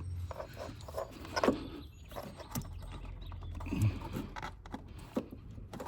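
Hands working a fuel-line quick-connect fitting onto a flex fuel sensor, with scattered small clicks, knocks and rubbing of plastic and metal as it is pushed but not yet seated. A brief grunt of effort comes about four seconds in.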